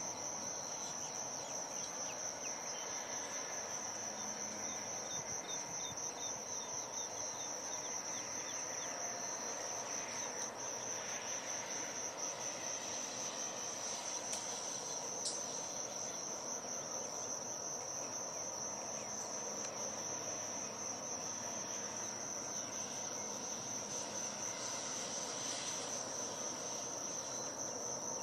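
Insects trilling steadily at a high pitch, a fast, unbroken pulsing buzz. A single small click about halfway through.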